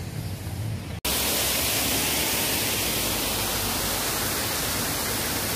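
A loud, steady, even hiss that starts abruptly about a second in, right after a brief dropout in the sound.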